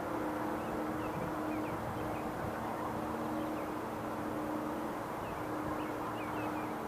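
Distant Federal Signal 2001-130 and 2001SRN outdoor warning sirens sounding a steady tone together, several pitches held level and overlapping. Faint bird chirps sound over them.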